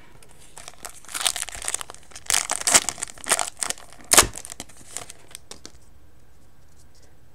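Foil wrapper of a 2012 Bowman baseball card pack crinkling and being torn open, a run of crackles from about a second in, with one sharp crack just after four seconds, falling quiet near six seconds.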